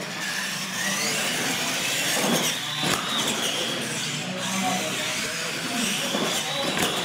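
Radio-controlled monster trucks' electric motors and gears whining as they race, the pitch climbing over the first few seconds, holding high, then dipping and climbing again, with a few light knocks.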